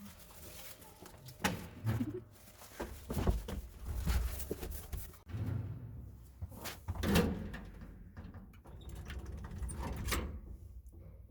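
Irregular knocks and thuds with some rustling, from parcels being handled and a door being moved.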